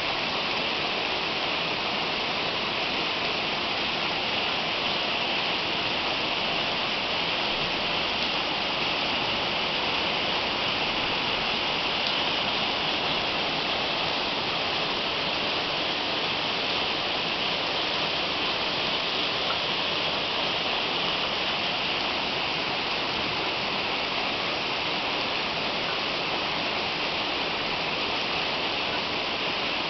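Heavy rain pouring down in a steady, unbroken downpour during a storm.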